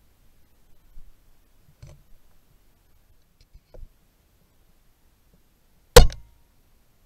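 A single shot from a Ruger Precision .22 rimfire rifle firing subsonic ammunition: one sharp crack about six seconds in that dies away quickly. A few faint clicks come before it.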